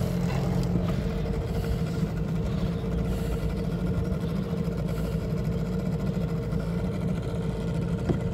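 12-horsepower Hangkai outboard motor running steadily, a constant low drone with an even hum. There is one light knock near the end.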